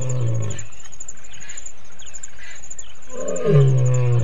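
A lion roaring in low, drawn-out calls, one dying away about half a second in and another starting about three seconds in, over a steady high insect trill.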